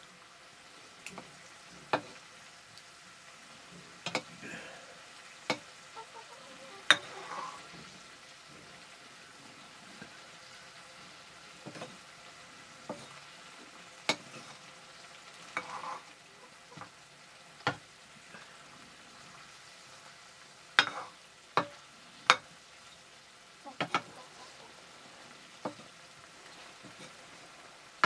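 Metal ladle stirring potato curry in a shallow pan over a wood fire: scattered sharp clinks and scrapes of the ladle on the pan, over faint steady sizzling of the frying curry.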